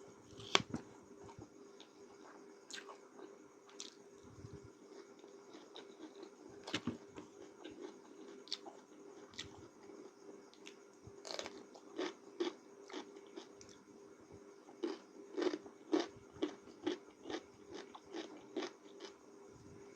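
A person eating noodles close to the microphone: scattered wet mouth clicks, then steady chewing at about two chews a second in the last few seconds, over a faint steady hum.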